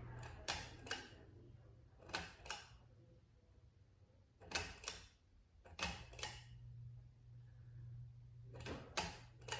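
Ceiling fan switch clicking in pairs, about five pairs a second or two apart, as the Nicor Chateau fan is switched. A low hum drops away for a few seconds and then comes back.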